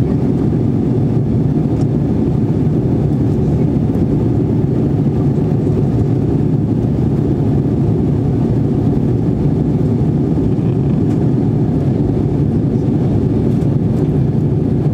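Steady low rumble of an Airbus A320-family airliner heard from inside the passenger cabin, with engine and airflow noise running evenly and no change in level.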